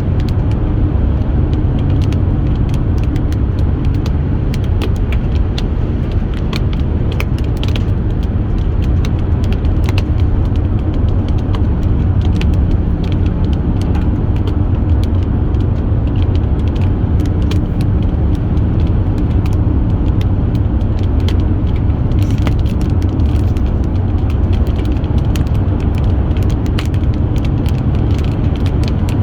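Steady road and engine noise heard from inside a moving car's cabin, with a low hum and many faint scattered ticks.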